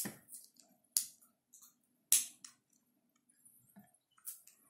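Plastic Lego bricks clicking and clattering as they are handled and pressed together: single sharp clicks about a second apart, the loudest about two seconds in, then a few quick clicks near the end.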